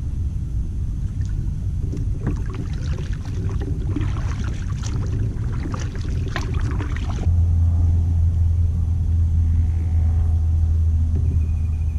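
Kayak paddle strokes, with the blades splashing and dripping water, over a low rumble. About seven seconds in, the splashing stops and a louder, steadier low rumble takes over.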